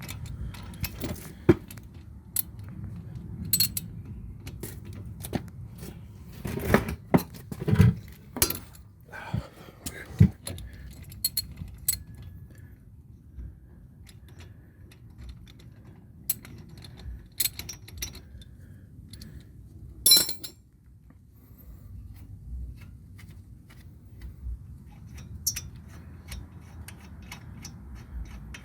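Hand tools and steel brake hardware clinking and knocking as wrenches, bolts and the caliper bracket are handled: irregular sharp metallic clicks, the loudest about 8 and 20 seconds in, over a steady low background hum.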